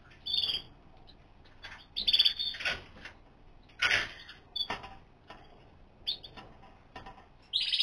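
Caged canaries calling: a string of short, high chirps and brief twittering phrases with quiet gaps between them.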